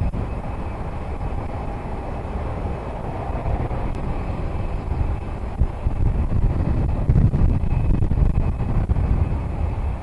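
Wind buffeting the microphone in gusts that grow stronger about halfway through, over a steady background of aircraft engine noise with a faint high whine.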